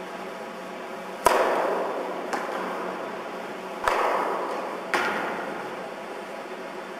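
Tennis racket striking a ball three times, with a fainter knock between the first two; each hit echoes and fades over about a second in an indoor tennis hall.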